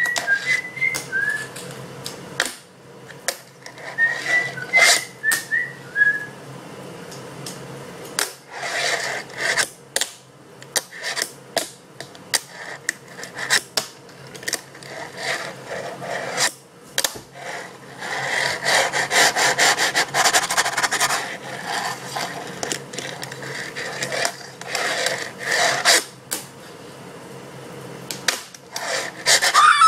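Fingerboard (a miniature finger skateboard) clacking and rolling on a tabletop: many sharp clicks of tail pops and landings, and a longer stretch of wheel-rolling rasp in the middle. Short whistled notes come in the first few seconds.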